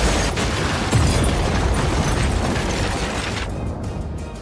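Film explosion of a snowmobile bomb blowing up a wooden cabin: a long, loud blast of noise, with a second heavy blast about a second in, dying away near the end.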